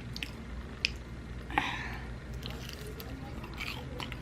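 Close-miked eating: chewing with wet, smacking mouth clicks and a brief crunchy rustle about a second and a half in, over a steady low hum.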